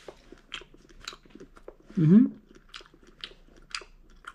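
A person chewing a mouthful of japchae glass noodles with beef, with many small clicks of the mouth, and a short hummed "mm" about two seconds in, the loudest sound.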